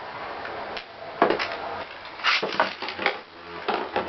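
Two metal-wheeled Beyblade spinning tops, Rock Leone 145WB and Lightning L-Drago 100HF, whirring in a clear plastic stadium bowl and clashing: a steady whir with a run of sharp metallic clacks about a second in and several more in the second half.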